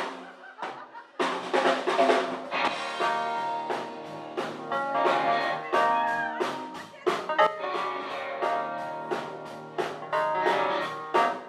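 Live soul band playing an instrumental passage on drum kit and other instruments, with no singing. After a quiet first second the full band comes in, held chords over a steady beat of drum hits.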